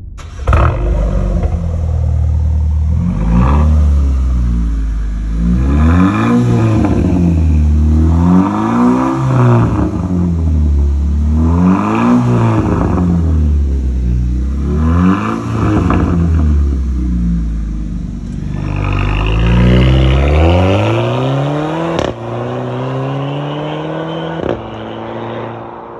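Haval F7's turbocharged four-cylinder engine through a tuned exhaust, with the stock resonator replaced by a Helmholtz resonator and dual outlets, revved repeatedly in place, each rev a rise and fall about every three seconds. Then the car accelerates away with the pitch climbing, breaks off briefly once, climbs again and fades near the end.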